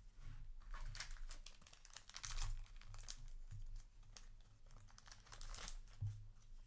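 Crinkly rustling and crackling of booster-pack wrapper and trading cards being handled, in several bunches of quick crackles.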